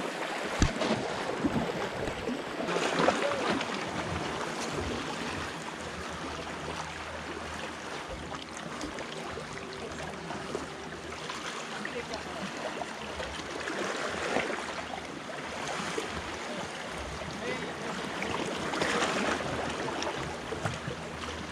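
Small sea waves washing against shoreline rocks, swelling into louder splashes every few seconds.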